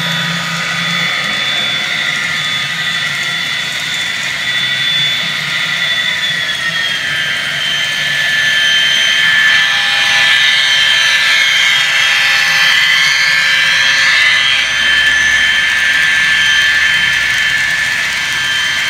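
Sound decoder of an Intermountain N scale Burlington Northern SD40-2 playing its EMD diesel engine sound through the model's small speaker as the locomotive runs: a steady high whine that steps down in pitch about six or seven seconds in, with a hiss swelling in the middle.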